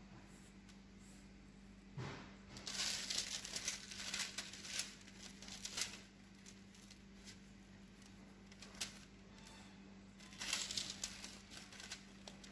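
Crumble mixture scattered by hand onto parchment paper in a sheet pan: the paper rustles and crinkles and crumbs patter onto it, in two spells, the first starting with a light knock about two seconds in and the second near the end. A steady low hum runs underneath.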